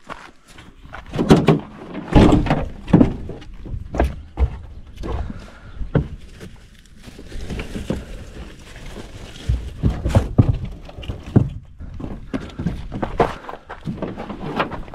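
A series of thunks and knocks as a steel pipe gate is unlatched and swung, then a bale of hay is grabbed, rustling, and hauled out of a pickup truck bed.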